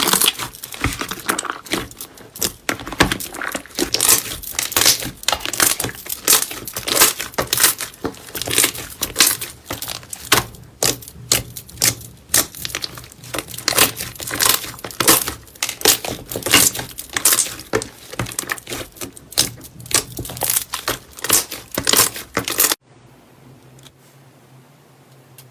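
Slime being squeezed and kneaded by hand, with dense, irregular crackling and popping. The sound cuts off suddenly near the end, leaving only a faint low hum.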